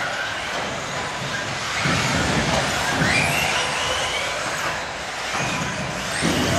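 1/10-scale electric off-road RC buggies racing on a carpet track. Their motors and gearing give a high whine that rises and falls as they accelerate and slow, over a steady noisy din, with a few short low thuds.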